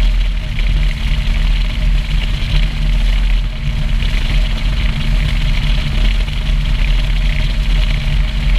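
Single outboard motor running steadily at high cruising speed, about 45 mph, with a constant engine hum and the hiss of the boat's rush through the water. Heavy wind buffets the microphone throughout.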